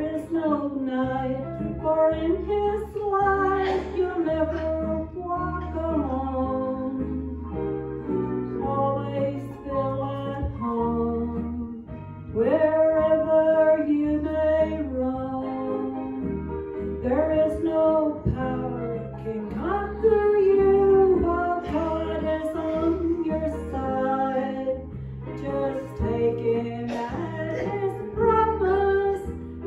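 A solo voice singing a song into a microphone over instrumental accompaniment with steady low bass notes, in a church sanctuary.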